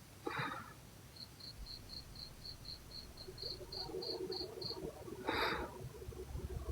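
Cricket chirping: an even run of high pips, about four a second, lasting a few seconds. A low rasping snore comes in about halfway through, and two short hissing bursts, the loudest sounds, come just after the start and near the end.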